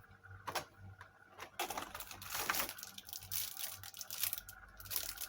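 Hands unpacking small gadget parts: plastic packaging crinkling in several spells, with a few sharp clicks of parts being handled.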